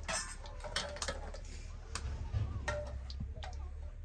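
Scattered light clicks and clinks of a metal spoon stirring in an aluminium pot on a wood-fired stove, over a low steady rumble.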